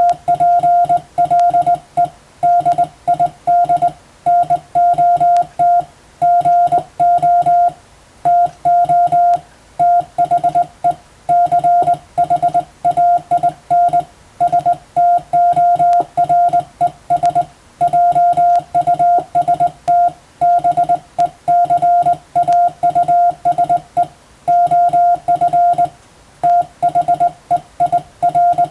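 Morse code (CW) sent by hand with a telegraph key: a single steady beep tone keyed on and off in dots and dashes, with short gaps between letters and longer gaps between words, in international Morse practice text.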